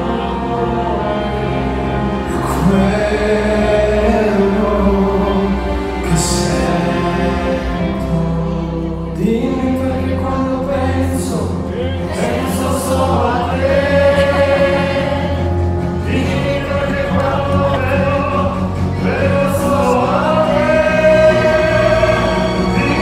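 Live pop-opera vocal trio singing with held, swelling notes over a band and orchestra with drums. The bass and drums come in more fully about nine seconds in.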